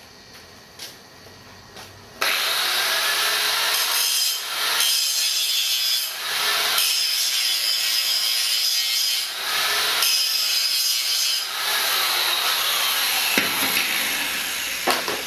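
A grinder grinding into a fresh MIG weld bead on steel, as a test of the weld for porosity. It starts suddenly about two seconds in, runs with a few brief dips as the disc bears on the metal, and stops a couple of seconds before the end.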